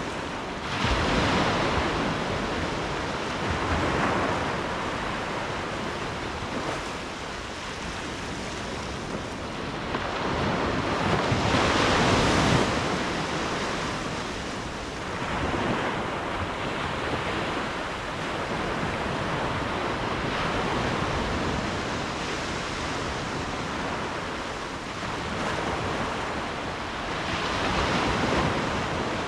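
Ocean waves breaking and washing ashore, a steady rush of surf that swells in surges every few seconds, loudest about twelve seconds in.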